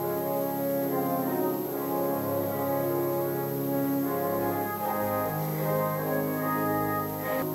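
Church organ playing slow, held chords as offertory music.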